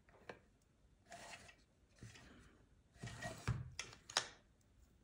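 Hands working a small glued circuit board loose from a plastic speaker chassis: a series of short rubbing scrapes, with a few sharp clicks between three and four seconds in.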